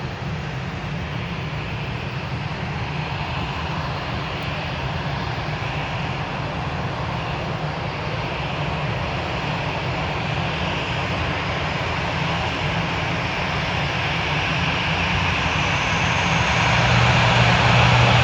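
Airliner engines, a steady rushing drone that grows gradually louder and swells near the end as the aircraft comes closer.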